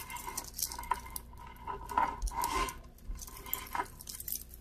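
Wooden and shell beads of a necklace clicking and rattling against one another as it is handled, in light, irregular clicks.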